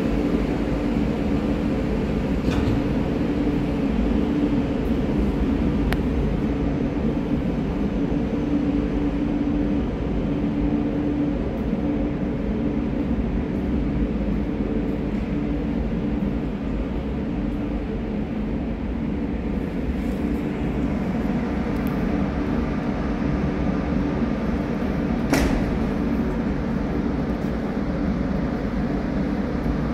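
Steady low hum of an underground station's ambience, ventilation and rail rumble, with a single sharp click late on.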